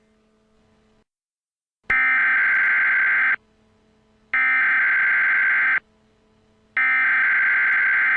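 Emergency Alert System SAME header: three identical bursts of harsh, buzzing digital data tones, each about a second and a half long with a second's pause between them, over a faint low hum. The bursts are the coded header that opens a new alert.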